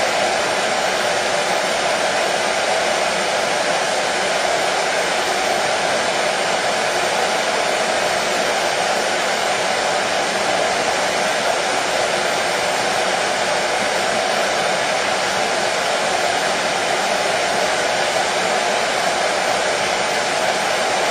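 Hair dryer running steadily, an unbroken, even blowing hiss with a strong mid-pitched hum in it.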